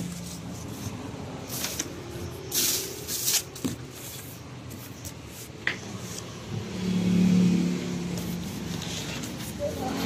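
Cardboard box and plastic wrapping being handled, with short scraping and rustling bursts in the first few seconds. Under it runs a steady low motor hum that grows loudest about seven seconds in.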